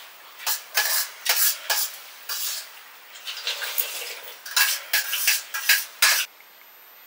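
Dishes and eating utensils clinking and scraping in a quick, irregular run of short strokes that stops about six seconds in.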